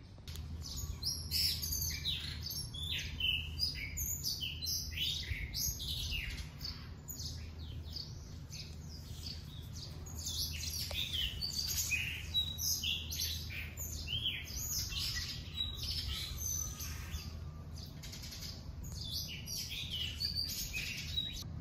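Small birds chirping busily, many quick short calls overlapping, over a low steady hum.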